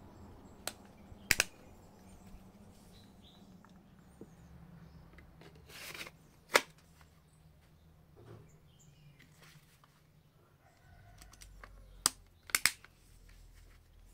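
Sharp plastic clicks and snaps from a Kydex knife sheath being handled: a click about a second in, a short scrape then a single snap around the middle, and a quick double click near the end.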